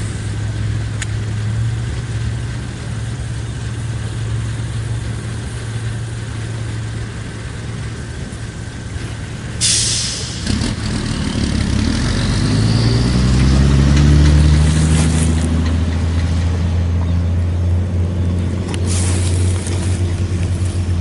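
A motor vehicle's engine running steadily, then rising in pitch as it speeds up about halfway through, with bursts of loud hissing about ten seconds in and again near the end.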